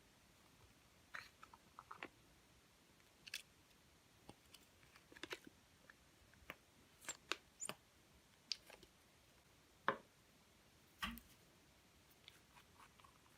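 Quiet, scattered clicks and small crackles of hands handling slime and makeup, with a sharper tap about ten seconds in.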